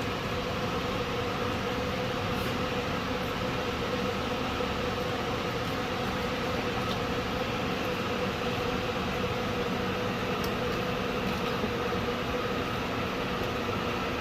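Steady mechanical hum with a constant tone, and a few faint light clicks.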